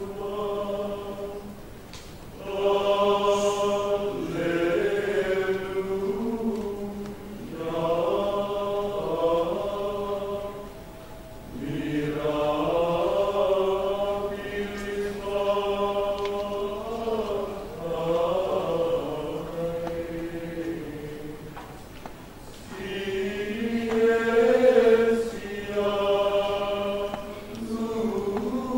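Men's choir singing Gregorian chant, several voices moving together in phrases with short pauses between them.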